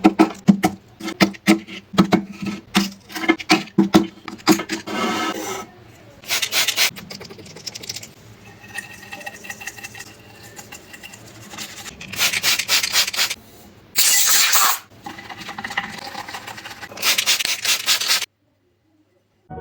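Brushing and scrubbing dried mud off a glass heart ornament. For the first few seconds the strokes are quick and repeated; after that come a few longer, hissier scrubbing passes, and the sound stops near the end.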